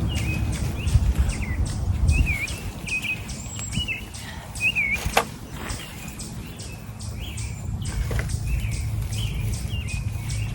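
Songbirds chirping over and over, with a high note repeated about twice a second, over a low rumble that is loudest in the first few seconds.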